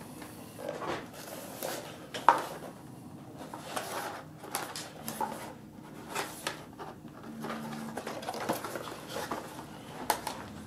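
Handling noise from an antique Hohner two-row button accordion being turned over in the hands: scattered knocks, clicks and rustles of the wooden case and bellows, with a sharp knock about two seconds in.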